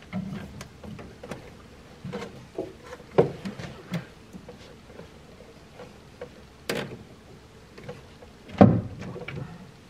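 Irregular knocks, clunks and clicks of metal parts and tools being worked by hand deep in a car's engine bay while an alternator is fitted, with a few louder thumps and the loudest one near the end.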